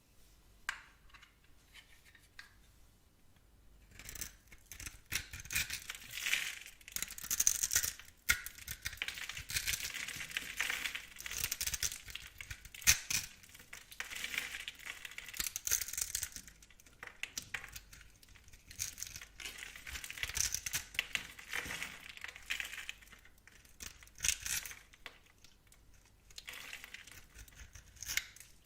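Knife cutting into bar soap in repeated crisp, scraping and crunching strokes, starting about four seconds in, with a few sharp clicks among them.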